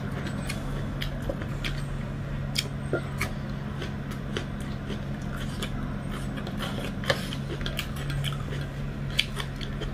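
Mouth sounds of someone eating dhido and chicken curry by hand close to the microphone: wet chewing and smacking with many short, irregular clicks, over a steady low hum.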